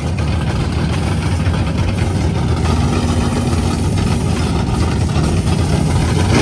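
Drag race car engines idling loudly at the starting line, a steady, heavy rumble with a fast uneven pulse.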